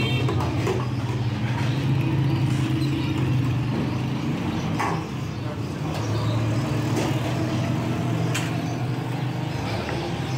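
Steady low mechanical rumble, with faint voices and two short sharp clinks, about five and eight seconds in.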